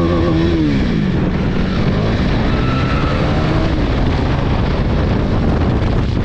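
Motorcycle engine running on the move with heavy wind rush on the microphone; the engine note rises and falls near the start and climbs again a couple of seconds later as the throttle changes.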